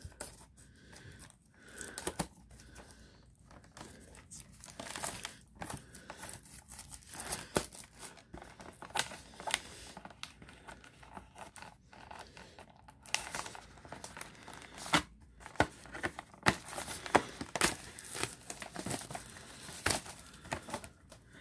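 Cardboard trading-card collection box with a clear plastic window being opened by hand: plastic crinkling and tearing, with many short crackles and clicks, busier and louder in the second half.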